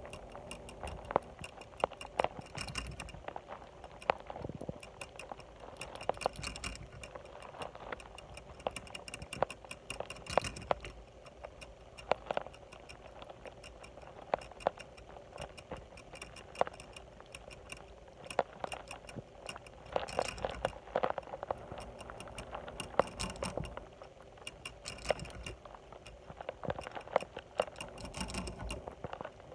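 Hamster drinking from the metal spout of a cage water bottle: its licks knock the ball in the spout, making irregular sharp clicks and light rattles, sometimes in quick clusters.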